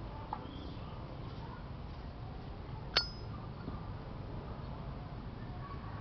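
A single sharp metallic clink with a short high ring about three seconds in, from a solid brass Zippo lighter being handled, over a steady low background hum.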